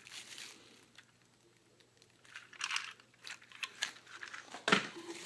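Plastic toy train coaches and packaging being rummaged through in a box: faint crinkling and small clicks and knocks, starting about two seconds in after a brief lull, with a sharper knock near the end.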